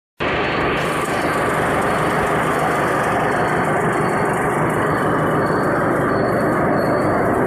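Machinery of a puffed snack production line running, a loud steady mechanical din that starts abruptly just after the start, with faint intermittent high tones above it.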